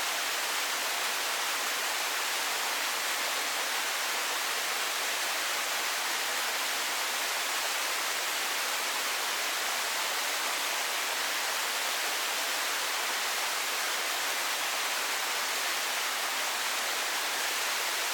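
Waterfall splashing steadily, an even rushing hiss that stays unchanged throughout.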